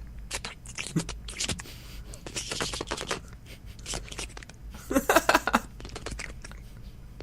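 Exaggerated mock making-out noises from a man's mouth: a rapid, uneven run of wet lip smacks, kissing clicks and slurps, with a short vocal moan about five seconds in.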